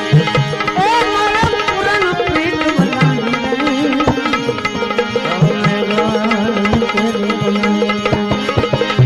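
Instrumental interlude of a Gujarati bhajan: steady hand-drum strokes under a sliding, wavering melody line over a held low drone.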